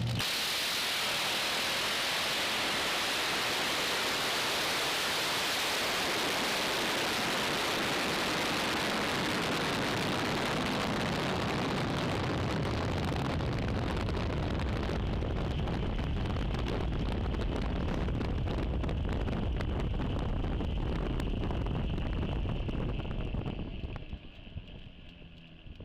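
Drag racing car's engine at full throttle: a loud, even roar that begins suddenly from idle and overloads the microphone, holding steady for over twenty seconds before fading away near the end.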